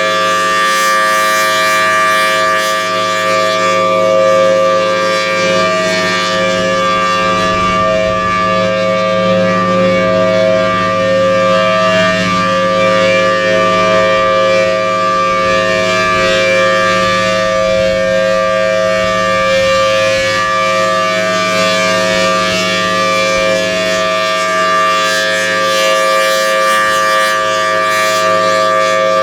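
Federal Signal Thunderbolt 1000T outdoor warning siren sounding a loud, steady tone that holds its pitch, with slight swells in level, for a tornado-drill siren test.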